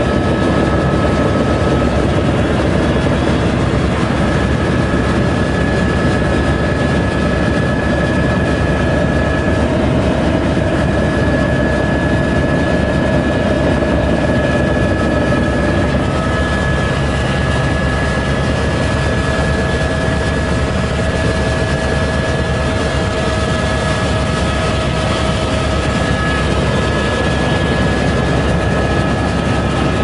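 Helicopter in flight heard from inside the cabin: a steady, loud drone of engine and rotor with a few steady whining tones above it.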